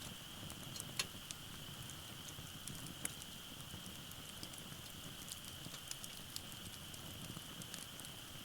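Wood fire burning in a fire pit, crackling with scattered small pops and two sharper snaps, about one and three seconds in.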